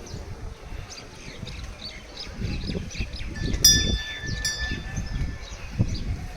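Two strikes of a small metal bell about a second apart near the middle, ringing on briefly, over steady chirping of small birds and a low rumble.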